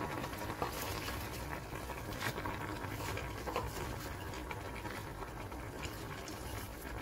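Water at a rolling boil in a stainless steel saucepan, bubbling and popping steadily around noodles and pak choy leaves.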